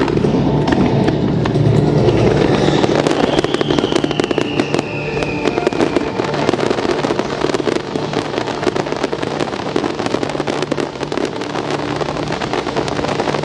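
Aerial fireworks bursting with dense, rapid crackling, and one descending whistle from a shell a few seconds in.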